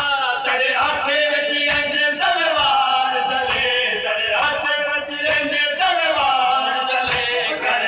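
A male voice chanting a noha lament in a melodic mourning recitation, with the steady rhythmic slaps of mourners beating their chests with open hands (matam) keeping time.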